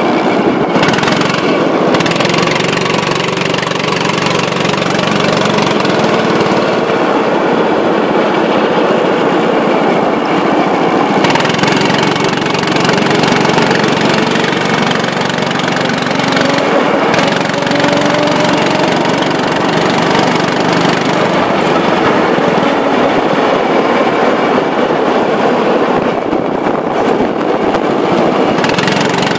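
Go-kart engines running hard around the track, a loud continuous buzz whose pitch rises and falls repeatedly as the karts speed up and slow down.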